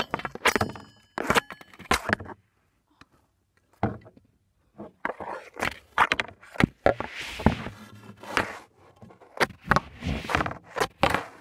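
Irregular knocks, clicks and scraping rustles close to the microphone, with a short pause about a third of the way in: handling noise of the recording iPad being picked up and moved about.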